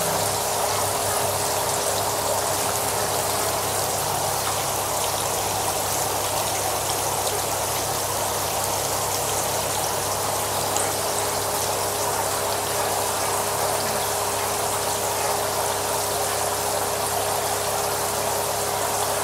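Steady splashing and bubbling of water in a tarpaulin koi pond, from the pump's water return and the aeration, with a steady low hum underneath.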